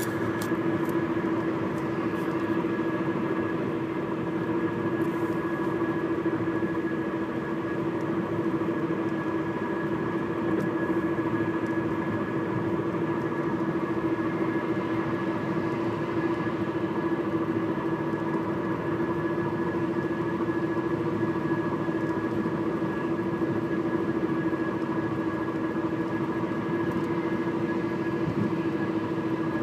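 Steady engine and road noise inside a Chevrolet's cabin while cruising at about 60 mph, with a constant pitched hum over the rush.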